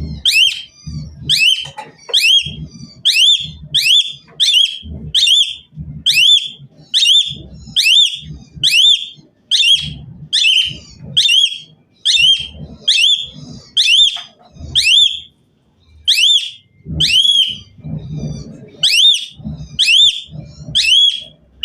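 Asian pied starling (jalak suren) calling over and over in a loud, high whistled call that rises and falls, about two a second, each call with a low thump beneath it.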